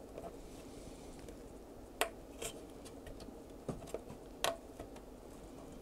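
A handful of faint, sharp clicks and small taps from fingers handling a tiny chip, its pins being bent by hand, over a steady low hum.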